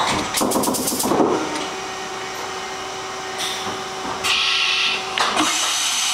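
Makino S33 vertical machining center running through its motions: a quick run of clicks near the start, then a steady whine with bursts of hiss as the spindle head travels down.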